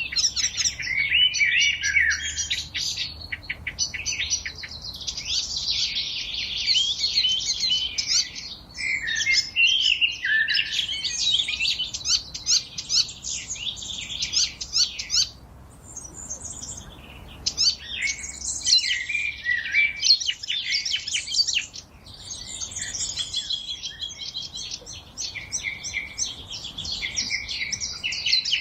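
Forest songbirds singing and chirping over one another in a dense chorus of quick trills and whistles, easing off briefly a little past the middle.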